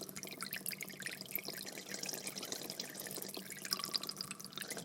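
Medium-sized aquarium with water flowing and little bubbles popping at the surface: a dense, steady patter of small splashes and drips over a faint low hum.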